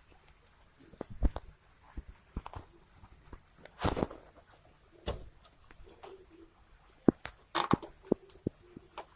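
Scattered clicks, knocks and short rattles of a motorcycle chain cover and its fixings being handled and fitted back on, with a louder clatter about four seconds in and another near the end.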